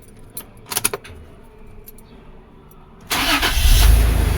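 A few key clicks at the ignition, then about three seconds in the 2002 Toyota Land Cruiser's engine cranks briefly and catches, running on with a steady low rumble. It starts, the sign that its wiring is restored.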